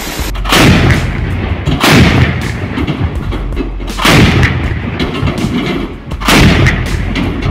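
Twin-barrel anti-aircraft autocannon firing: four loud reports or short bursts about two seconds apart, each echoing away before the next.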